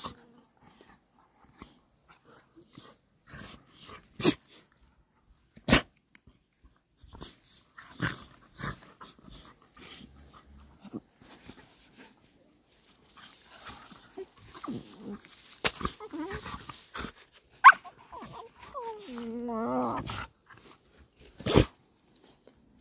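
A dog digging and sniffing at a hole in dirt, with scattered scratching, several sharp knocks and a brief wavering whine near the end.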